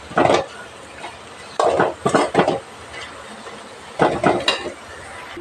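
Slotted metal spoon scraping around an aluminium kadai, stirring cooked greens and grated coconut, in three short bouts of strokes.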